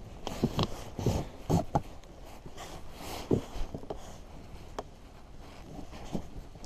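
Handling noise from hands tying a keepnet's cord to the boat's rail: rustling and rubbing, with several short knocks and clicks, most of them in the first two seconds.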